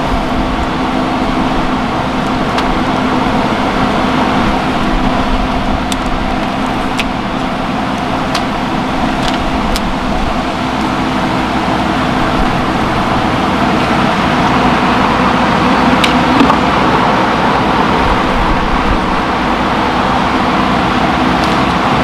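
Loud, steady hum of a large honeybee colony exposed in an opened wall, the bees stirred up as their comb is cut out and framed, with a few light clicks from handling.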